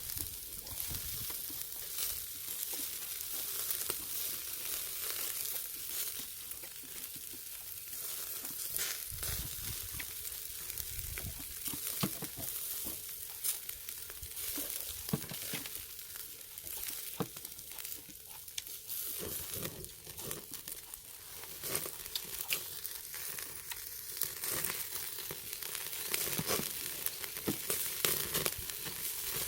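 Pork neck sizzling on a charcoal grill over a brazier, a steady hiss with small pops and crackles as fat and juices drip onto the hot coals.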